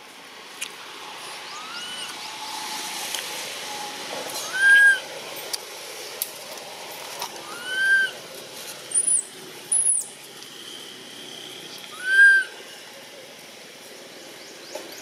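Baby long-tailed macaque crying: four short arched calls, each rising and falling, a few seconds apart. These are an infant's distress calls to its mother. Two very high, short chirps come in about two-thirds of the way through.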